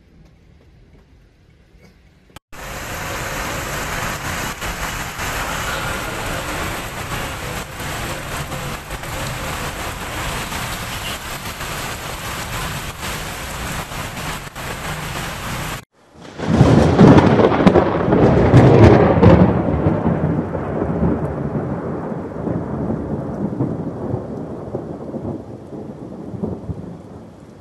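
Heavy rain pouring down steadily, starting abruptly a couple of seconds in. After a sudden cut a little past halfway, a loud deep rolling rumble swells quickly and then slowly dies away.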